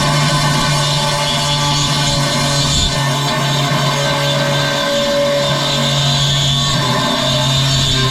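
Background rock-style music, steady and loud, with the bass notes changing every few seconds.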